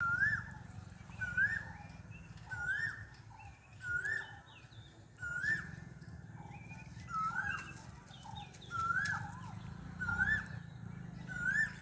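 A bird calling over and over, one short call that rises then falls in pitch, about once every second and a half, over a steady low rumble.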